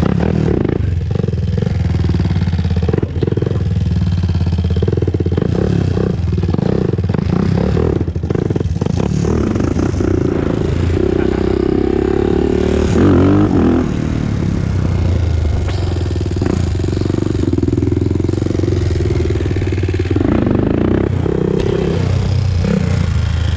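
Honda TRX400EX ATV's single-cylinder four-stroke engine running while ridden, its note shifting briefly with the throttle, with scattered clicks and rattles.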